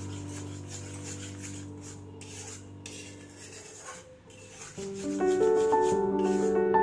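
A metal spatula scraping and stirring a thick corn-flour batter in a kadai, in quick repeated strokes, over background music that fades out and then returns louder about five seconds in.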